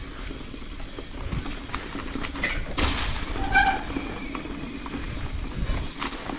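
Mountain bike disc brakes howling with a steady drone, and a brief higher squeal about three and a half seconds in, over the rattle and knocks of the bike on a rough trail. The brakes are faulty.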